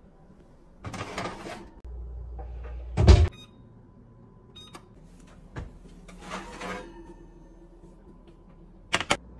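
Kitchen wall oven in use: a metal baking tray scrapes along the oven rack, the oven door shuts with a loud thump about three seconds in, and a few short beeps come from the touch control panel. The tray then scrapes out again, and a sharp metal clank comes near the end.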